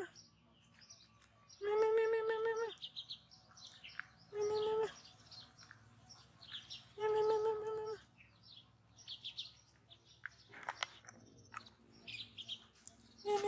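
A hungry ginger kitten meowing three times, each call about a second long and held at a steady pitch, with a fourth meow starting right at the end. Small birds chirp high and briefly throughout.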